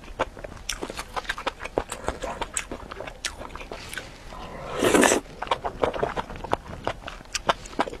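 Close-up eating sounds of noodles: a steady run of wet chewing clicks and smacks, with one loud slurp of noodles a little past halfway that lasts under a second.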